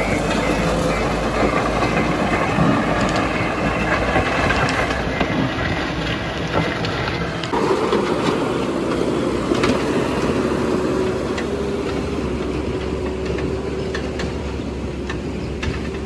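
JCB 3DX backhoe loader's diesel engine running steadily under work, with scattered knocks. The engine note changes about halfway through.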